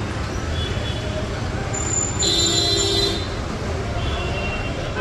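Busy city street ambience: a steady low rumble of traffic with faint voices in the background. About two seconds in, a brief high-pitched tone sounds for about a second over the street noise.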